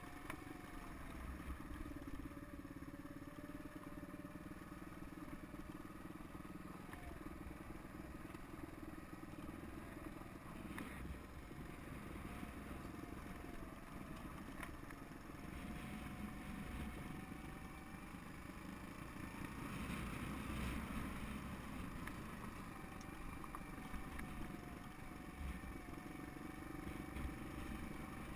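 Suzuki DR200's single-cylinder four-stroke engine running at steady, moderate revs while the bike rides over a rough dirt track. The engine note wavers slightly up and down, with a couple of short rattles about 11 and 13 seconds in.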